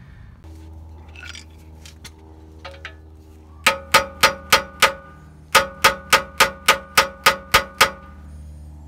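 Hammer striking a vise grip clamped onto a seized, rust-stuck brake caliper slide pin, each blow ringing metallically. About five quick strikes, a short pause, then about ten more at roughly four a second.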